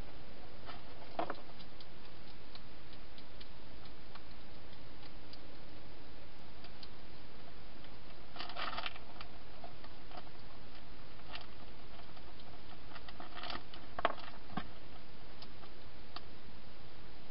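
Wild hedgehog feeding in a plastic feeding box: scattered clicks and crunches of food being eaten, in a few short clusters with the sharpest about 14 seconds in, over a steady hiss.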